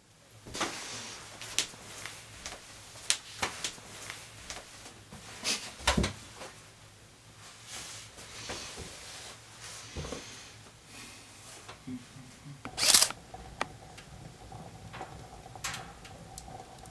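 Handling noises in a small room: scattered light clicks, knocks and rustles of people at a table. About thirteen seconds in there is one louder, brief rustle or scrape, and a faint steady tone comes in just before it.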